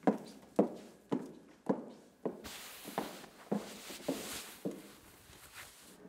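Footsteps of hard-soled shoes on a hard floor, an even walking pace of about two steps a second, growing fainter as the walker moves away. A soft rustle sounds under the steps midway through.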